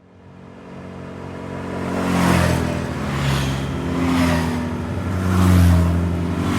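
ATV quad bike engine, fading in and then revving in repeated swells, rising and falling about once a second.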